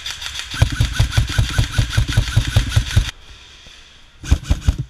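Airsoft electric rifle (AEG) firing full-auto: its gearbox cycling in a long rapid burst of evenly spaced shots that stops about three seconds in, then a short burst of a few shots near the end.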